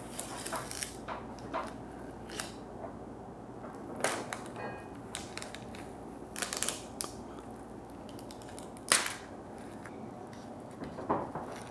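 Handling a Kraft Macaroni & Cheese microwavable cup: scattered crinkles and sharp clicks as its peel-off plastic lid is pulled back and the paper cheese pouch inside is handled. The sharpest crackle comes about nine seconds in.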